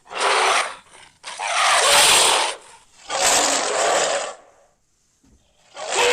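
Custom-made dragon roar sound effect: four harsh, raspy roars in a row, each lasting from about half a second to a second and a half, with short gaps between them.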